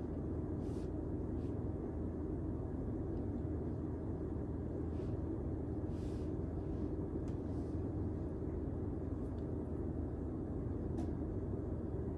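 Steady low rumble of a moving vehicle, with a few faint short ticks now and then.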